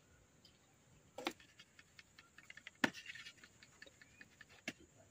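Faint taps and ticks of a hand sieve being shaken and tapped as flour is sifted. There are a few sharper clicks about a second in, near three seconds and near the end, with light ticking between.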